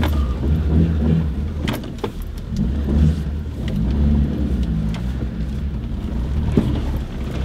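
A Mitsubishi Pajero Junior's engine runs steadily at low speed as the little 4x4 crawls over a rutted mud track. A few sharp knocks and rattles come from the vehicle jolting over the bumps.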